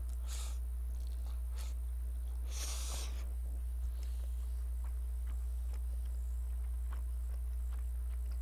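A person slurping Jjapaghetti noodles, a short slurp near the start and a longer hissing one about three seconds in, then quiet chewing with small mouth clicks. A steady low hum runs underneath.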